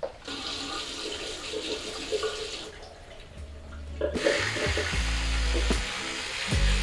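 Water running from a tap into a bathroom sink, cutting off a little under three seconds in and starting again over a second later. Soft music with low notes comes in during the second half.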